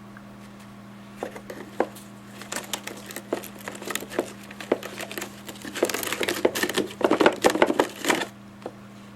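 Dry, stiff humidifier filters being handled, crinkling and rustling with scattered clicks that grow denser and louder, then stop abruptly near the end. A steady low hum runs underneath.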